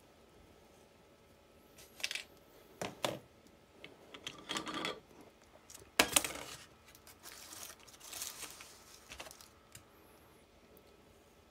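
Small metal parts of a Fiat 126 BİS starter motor clicking and clinking as the circlip is pried off the armature shaft and the pinion drive is worked off. There are scattered sharp clicks, the loudest knock about halfway through, then a few seconds of rustling and clinking.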